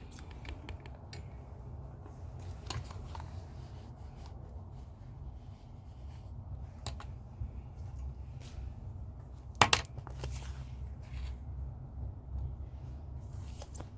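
Faint rustles and light clicks of paper being handled over a low steady hum, with one sharper click about ten seconds in.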